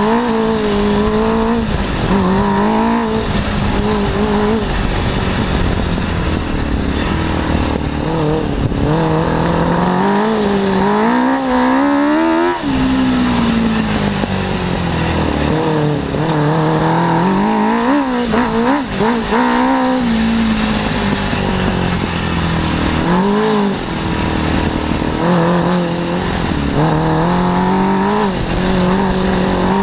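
Suzuki 600 cc inline-four motorcycle engine powering an off-road buggy under way, its pitch rising and falling again and again as the throttle is opened and closed, with sudden drops in revs.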